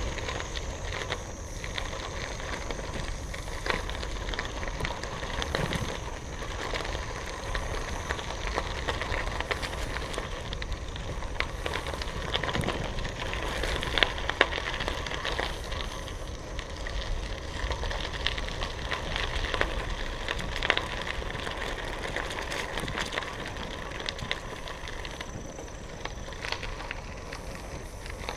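Bicycle tyres rolling over a gravel trail: a steady crunching hiss peppered with small clicks and pops from the stones, with a couple of sharper pops about halfway through.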